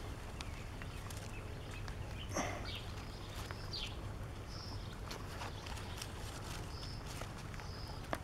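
Outdoor ambience with a steady low rumble of wind on the microphone and several short, faint high bird chirps. Faint scattered clicks and rustles come from hands working a plastic plant clip onto a tomato stem, with a sharper click near the end.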